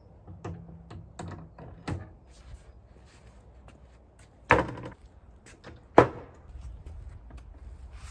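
Hinged slatted wooden door of a trash can enclosure being swung and shut: a few light clicks and knocks, then two sharp wooden bangs about a second and a half apart, the second the louder.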